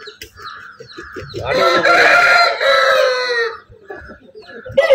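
Game rooster crowing once, a loud call of about two seconds beginning about a second and a half in and dropping in pitch at its end, after a run of short, quick clucks from the flock. A second crow starts right at the end.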